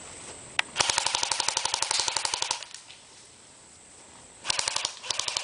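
Airsoft guns firing: a single shot, then a rapid full-auto burst of nearly two seconds, and a shorter burst near the end.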